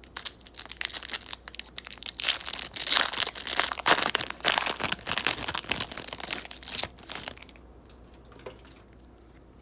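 Plastic-foil trading card pack wrapper being torn open and crinkled, a dense crackling that stops about three-quarters of the way through.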